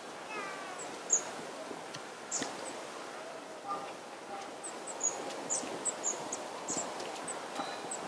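Long-tailed tits calling: many short, thin, very high-pitched notes in quick succession, coming thicker in the second half, over a faint steady background hum. A brief lower-pitched falling call sounds near the start.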